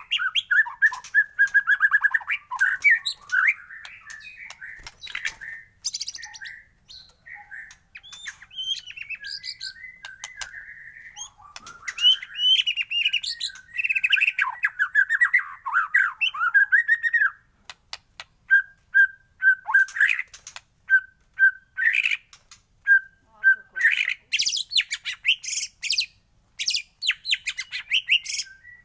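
A songbird singing a fast, varied song of whistles, chattering phrases and sharp clicks. Past the middle it gives a run of short, evenly spaced single notes, then breaks back into dense phrases.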